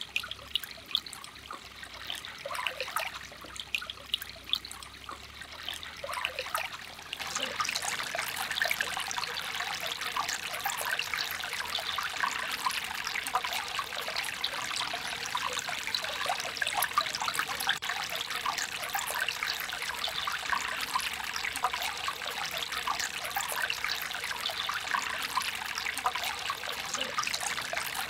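Shallow stream trickling over rocks, with small splashes of hands washing a fish in the water at first. About seven seconds in, the trickling becomes louder and steadier.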